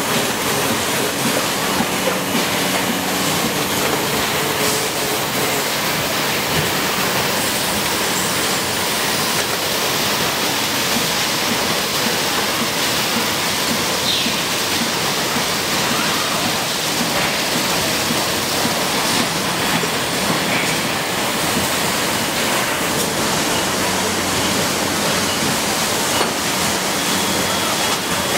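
Steady running noise of an automated motor-stator production line: an even, hiss-like noise with a faint low hum under it and no distinct strokes.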